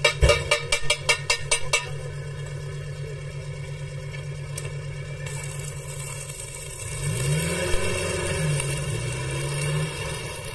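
Rapid tapping on steel, about five strikes a second, stops about two seconds in. From about five seconds in, a stick-welding arc crackles and hisses on the 1-inch steel pipe joint. Underneath runs a low engine hum that wavers in pitch in the second half.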